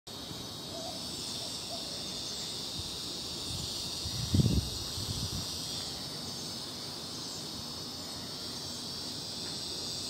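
Northern dusk-singing cicada giving a steady, high-pitched distress buzz as it struggles in a bird's beak. A low thump about four seconds in.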